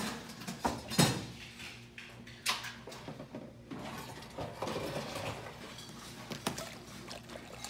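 Glass bottles and ice-filled rocks glasses knocking and clinking on a bar counter as they are handled, in a series of scattered sharp knocks, the loudest about a second in.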